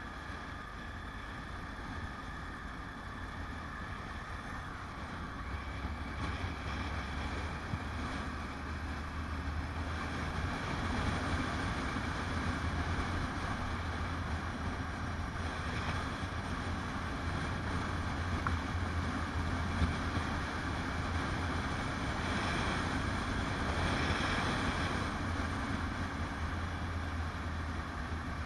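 Motorcycle engine running at a steady low hum while riding, with wind rushing over the microphone; the engine hum grows louder about five seconds in.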